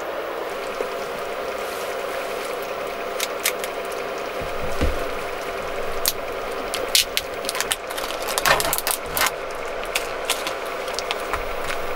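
Plastic film being peeled off a tofu tray, with crackling and sharp clicks mostly in the second half. Under it, a pan of soup simmers steadily on an induction cooktop, with a soft low thump near the middle.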